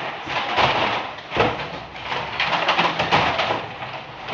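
Plastic water jugs knocking, bumping and scraping against each other as they are handed up and stacked in a truck's cargo box. There are several sharp knocks spread through a steady clatter.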